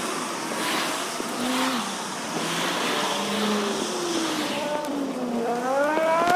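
Passing road traffic played back about four times too fast, so the car engines become high-pitched whines gliding up and down over a hiss of tyres. Near the end a car's whine climbs steadily, the loudest moment.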